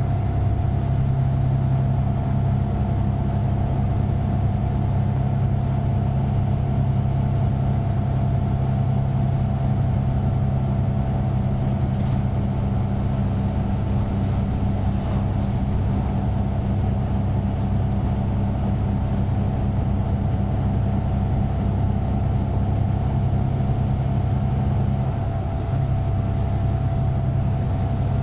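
Van Hool AG300 bus with its DAF PR228S six-cylinder diesel engine running, heard as a steady low drone inside the passenger cabin. The drone shifts slightly about 25 seconds in, with a few faint rattling ticks along the way.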